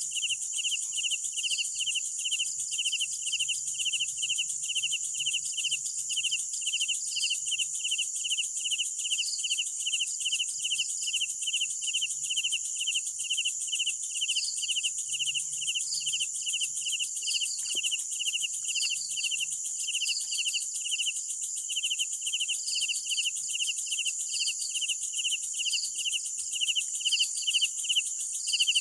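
Night crickets chirping in chorus: one chirps evenly, two or three times a second, over a continuous high-pitched insect trill, with scattered quicker chirps higher up.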